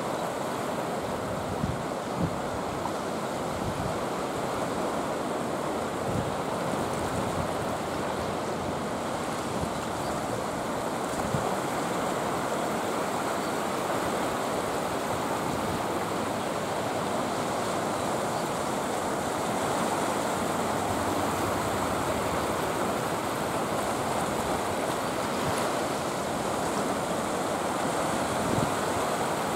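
Sea waves washing in and breaking on a rocky shore: a steady rush of surf, with a few low wind thumps on the microphone.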